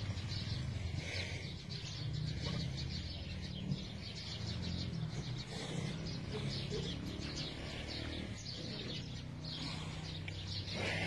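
Many small birds chirping and twittering without pause, over a steady low rumble.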